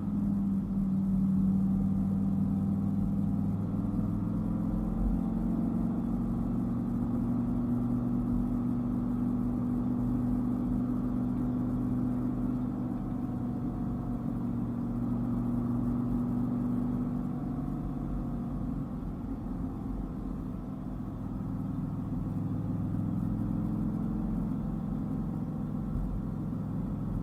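Dodge Viper's V10 engine running at a steady cruise: a low drone over road noise that eases off a little past the middle and picks back up near the end.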